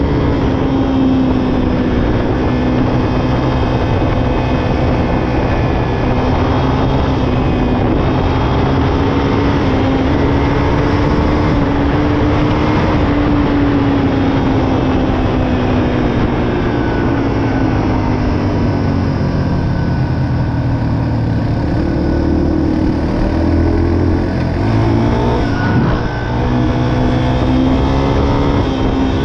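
Yamaha dirt bike engine running steadily under way on pavement. Its note falls slowly after about fifteen seconds, drops briefly at about twenty-six seconds as the throttle comes off, then picks back up.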